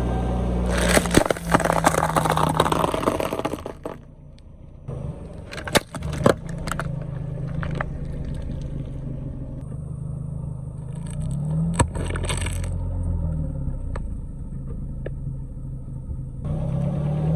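A car engine running slowly while the tyres roll over and crush objects. A dense crackling crunch comes in the first few seconds, and a few sharp single cracks or pops come later.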